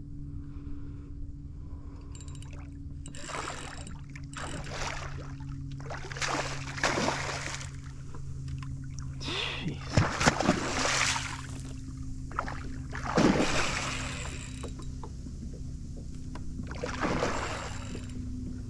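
Water splashing in short, irregular bursts beside a kayak, five or so times, the loudest about ten and thirteen seconds in, over a steady low hum.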